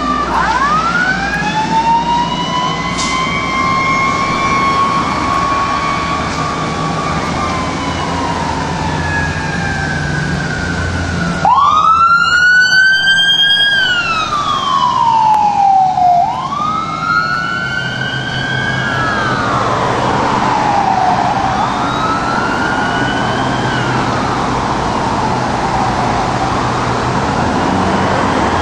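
Fire engine and ambulance sirens wailing in slow rising and falling sweeps over the rumble of the trucks' engines. About twelve seconds in, the sound jumps to a fresh wail, and in the second half two sirens' wails overlap.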